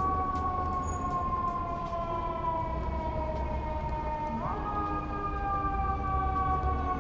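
Emergency vehicle siren: one tone that falls slowly in pitch, jumps quickly back up about four and a half seconds in, then falls slowly again, over the low rumble of city traffic.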